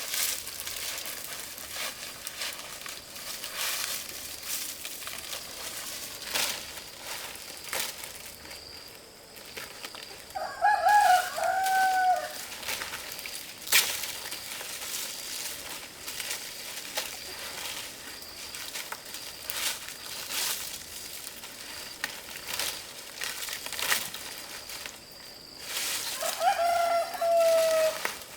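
A rooster crowing twice, each crow about two seconds long, about ten seconds in and again near the end. Scattered short knocks and clicks run between the crows.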